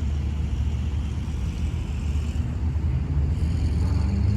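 Diesel locomotive engine rumbling at low throttle while switching cars, a steady deep drone that grows a little louder toward the end.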